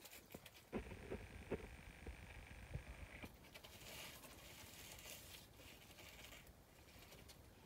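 Faint room tone with a few soft knocks and light rustling, clustered between about one and three seconds in, over a faint high steady hum.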